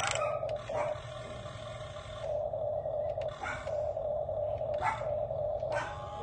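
Several short barks at irregular intervals over a steady droning hum.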